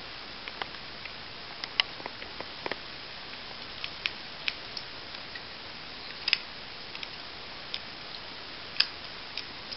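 A small screwdriver driving a self-threading screw into a plastic servo horn: scattered, irregular light clicks and ticks as the tip turns in the screw head and the plastic parts knock together, with sharper clicks about two seconds in and near the end.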